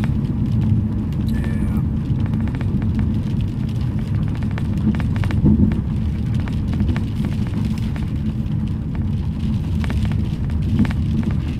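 Steady low rumble inside a moving car's cabin, with many raindrops ticking on the roof and windshield.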